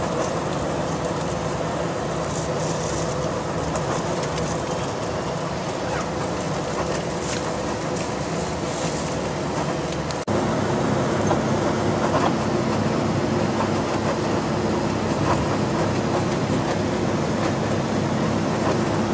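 Tour coach's engine and road noise, a steady drone heard from inside the cabin while it drives. About ten seconds in the sound changes abruptly to a slightly louder, steady hum.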